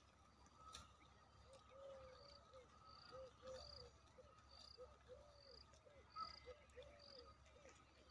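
Faint birdsong: one bird repeats short, low, arching calls, while another gives a short high chirp about once a second.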